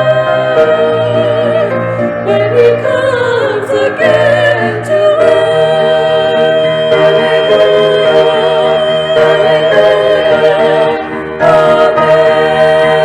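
Church choir singing long held notes with vibrato, a final sustained passage of a Christmas anthem; the sound drops briefly about eleven seconds in, then the choir comes back in.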